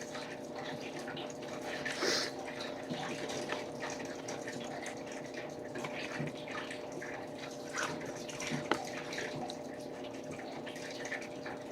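Steady low trickling, water-like background with a faint hum, broken by a few soft ticks and a brief rustle about two seconds in.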